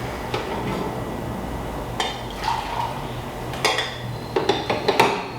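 Dishes and cutlery clinking and knocking in a kitchen: a few sharp clinks about two seconds in, then a quick cluster of them near the end, over a steady low hum.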